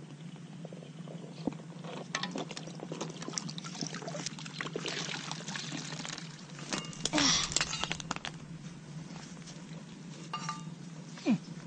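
Muddy pond water splashing and pouring as a plastic bucket is dipped in and lifted out to scoop up apple snails, with scattered clicks and knocks, and the biggest splash about seven seconds in. A steady low hum runs underneath.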